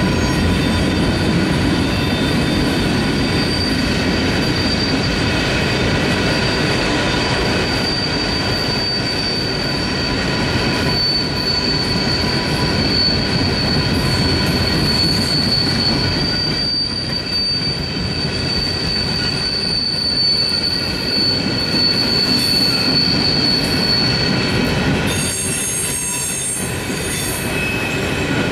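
Empty Norfolk Southern gondola cars rolling through a curve, their wheel flanges squealing in a steady high-pitched tone over the rumble of the wheels on the rails; the squeal comes from the wheels grinding against the rail on the curve. Near the end a higher squeal joins in briefly.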